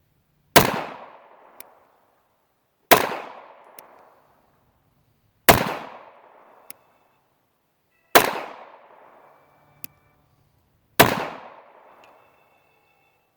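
Five single pistol shots from a Taurus 9mm handgun fired with remanufactured ammunition, spaced about two and a half seconds apart, each echoing for about a second. A faint tick follows each shot about a second later.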